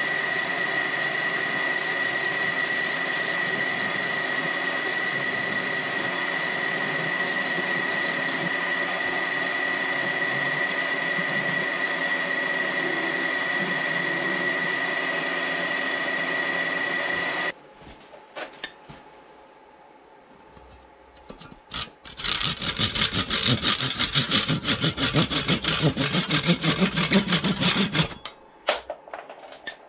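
A wood lathe spinning a chestnut vase runs with a steady whine while a tool cuts at its tailstock end; the sound stops abruptly about seventeen seconds in. After a few quiet seconds with a few clicks, a handsaw saws rapidly through the chestnut stub at the vase's end for about six seconds.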